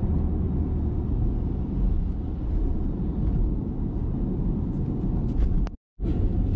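Steady low rumble of a car driving on a wet highway in rain, heard from inside the cabin. The sound cuts out completely for a moment near the end.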